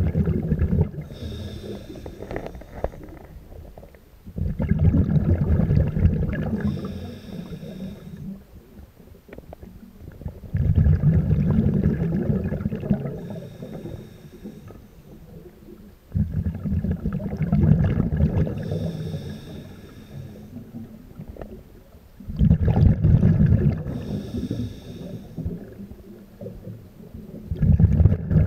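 A scuba diver breathing through a regulator: a short hissing inhale, then a longer, louder rumble of exhaled bubbles, repeating about every six seconds.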